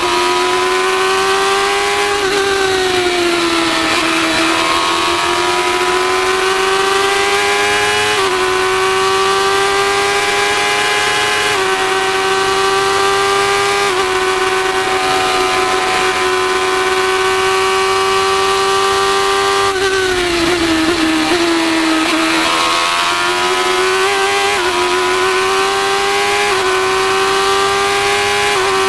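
Formula 1000 race car's 1000 cc motorcycle engine running at high revs on track. Its pitch sinks twice, about two seconds in and again about twenty seconds in, then climbs back with small steps at the gear changes.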